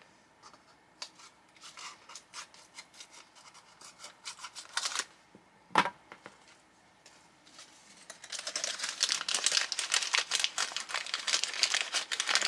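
Small plastic packet being cut open with scissors: scattered snips and clicks at first, then from about eight seconds in a steady run of plastic crinkling as the packet is opened and handled.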